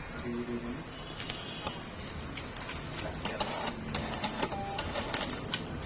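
A small machine whirring with rapid mechanical clicks, busiest in the second half.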